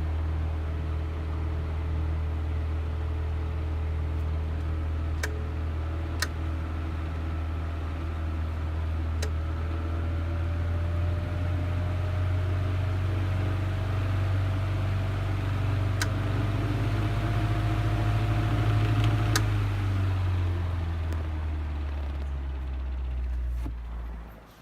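1950s Mimar MP-416 16-inch table fan running: steady motor hum and blade noise, with a few sharp clicks and a whine that slowly rises in pitch. After a click about five seconds before the end, the sound winds down and drops away.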